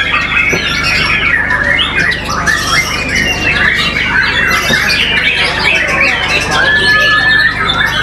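White-rumped shama singing a fast, unbroken song of quick varied notes and chatters, with a clear held whistle near the end.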